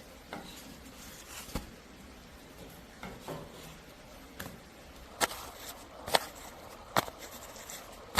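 A series of sharp knocks and clicks, a few scattered ones at first, then about one a second in the second half.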